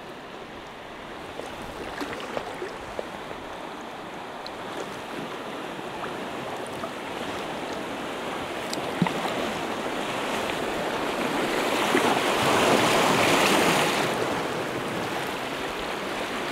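Fast-moving river water running through a small rapid, a steady wash that grows louder as the kayak moves into it, loudest about three-quarters of the way through, then easing a little.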